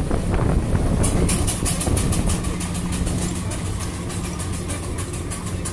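1918 Nichols & Shepard 'Red River Special' steam engine running, its exhaust chuffing at about six even hissing beats a second over a steady low hum; the first second is louder and more uneven.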